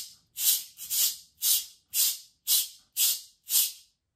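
A cabasa, its steel bead chains twisted back and forth against the metal cylinder, gives about eight short, even rasping scrapes at roughly two a second, then stops.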